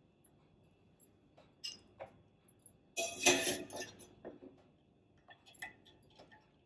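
Wire mesh skimmer clinking against a stainless steel pot and a glass bowl as boiled baby corn pieces are scooped out of the water and tipped into the bowl, with scattered light clinks and one louder clatter about three seconds in.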